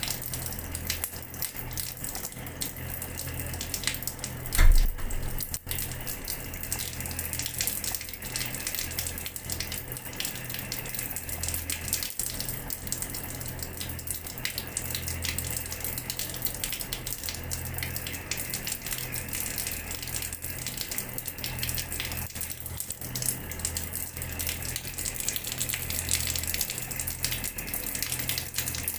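Water running from a tap and splashing steadily onto a floor, with one short, loud thump about five seconds in.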